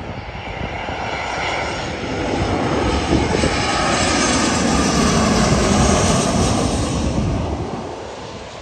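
Southwest Airlines Boeing 737 jet airliner passing low overhead on approach with landing gear down, its twin turbofan engines a rushing roar with whining tones. It grows louder over the first few seconds, is loudest around the middle, and drops away near the end as the jet passes.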